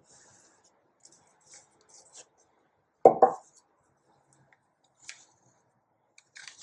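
Hands handling a boxed item and its packaging: faint rustles and light taps, with one louder double knock about three seconds in.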